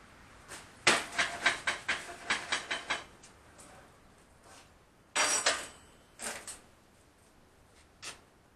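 Quick series of light hammer taps on steel, about five a second for two seconds. Then a louder clank of metal on the steel welding table with a brief ring, and a few single knocks.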